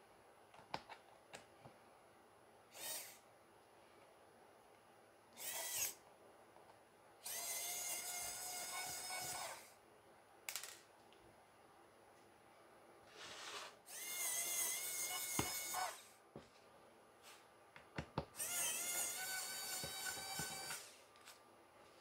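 Cordless electric precision screwdriver whirring in bursts as it backs out the pentalobe screws of a MacBook Pro's bottom panel: two brief spins, then three longer runs of about two and a half seconds each, with small clicks of the bit between them.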